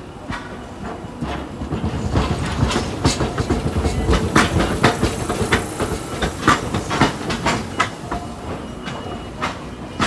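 Hiroshima Electric Railway 800-series tram's wheels clattering over the switch points and rail crossings as it passes close by: a rapid run of clicks and clunks over a low rumble, building about two seconds in and thinning out near the end.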